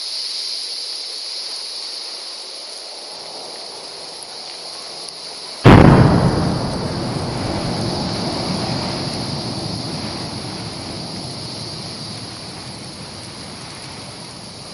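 Outbreak of the Sundhnúkur fissure eruption: a sudden loud boom about six seconds in, fading slowly into a long low rumble, over a steady hiss.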